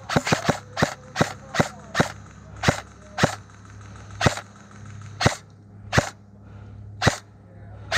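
Airsoft rifle firing single shots, about fourteen sharp cracks, several in quick succession at first and then slowing to roughly one a second.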